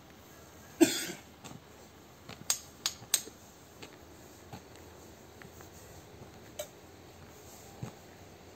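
Small cups and bowls clinking and knocking as they are handled on a concrete step: one sharp knock about a second in, three quick clicks around three seconds, then a few fainter taps.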